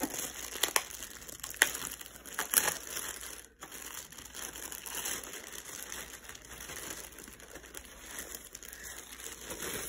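Thin clear plastic bag crinkling and rustling as a laptop is worked out of it by hand, with a few sharper crackles in the first three seconds.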